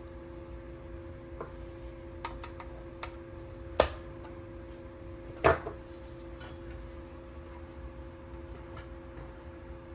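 Light clicks and two sharp knocks of hard objects being handled and set down, about a second and a half apart, over a steady low hum.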